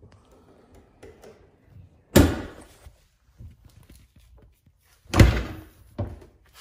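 Front trunk (frunk) lid of a Tesla Model S pushed shut twice: two heavy thunks about three seconds apart, with faint handling noise between them.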